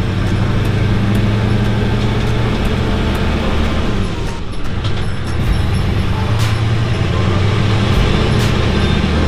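Pickup truck driving on a wet road, its engine and road noise heard steadily from inside the cab. The noise dips briefly about four seconds in, and faint clicks come every second or so.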